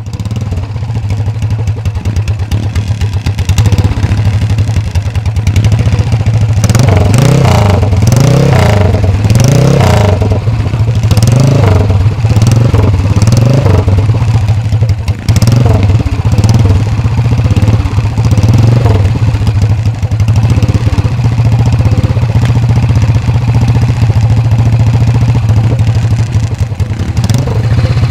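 A 1974 CCM's 600cc single-cylinder four-stroke engine, B50-based, running through an open straight-through big-bore pipe. The throttle is blipped repeatedly through the middle stretch, the pitch rising and falling, then the engine settles back to a steady idle.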